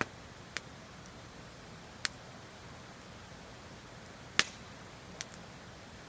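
Wood campfire crackling: five sharp pops at irregular intervals, the loudest about four and a half seconds in, over a faint steady hiss.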